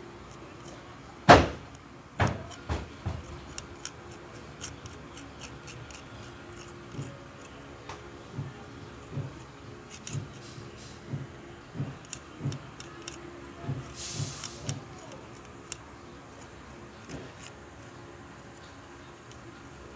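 Knocks and taps of small objects handled on a workbench: one sharp knock about a second in, a few more soon after, then a run of soft, evenly spaced taps.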